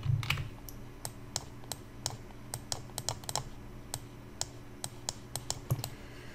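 Irregular clicking from computer input, a few sharp clicks a second, over a faint steady low hum, with one heavier knock a little before the end.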